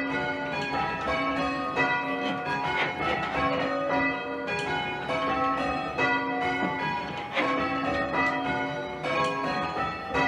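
Change ringing on a light ring of six church bells (tenor about 4½ cwt), the bells struck one after another in a steady, even rhythm of several strokes a second, each stroke ringing on into the next.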